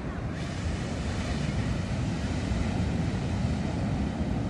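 Wind blowing across the phone's microphone: a steady rushing rumble, heaviest in the low end.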